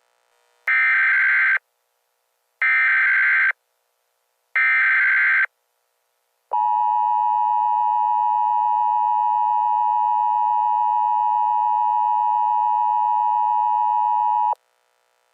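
Emergency Alert System tones: three bursts of digital SAME header data, each about a second long, then the steady two-tone attention signal for about eight seconds, cutting off sharply.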